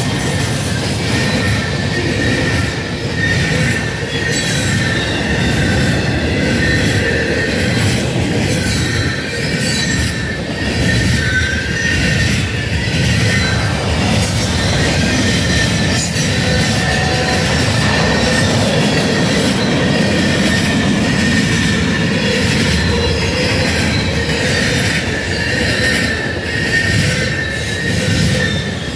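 Cars of a mixed freight train rolling past close by, wheels clattering on the rails, with a steady high-pitched wheel squeal.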